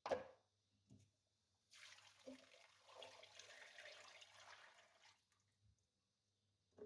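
A light knock, then lemon juice pouring and splashing for about three and a half seconds as it is strained into a container.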